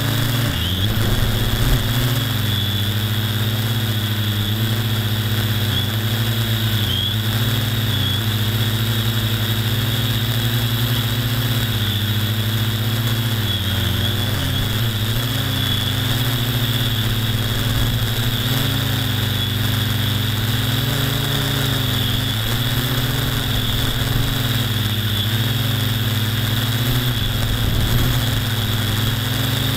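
Electric motor and propeller of a radio-controlled aircraft carrying the camera, running steadily: a constant hum with a high whine above it, its pitch wavering slightly.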